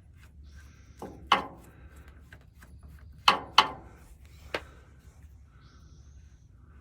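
Tools being worked on a 1956 Dodge Town Panel's clutch pedal linkage adjustment: a few sharp clicks and knocks, in two pairs and then one single, over faint handling noise.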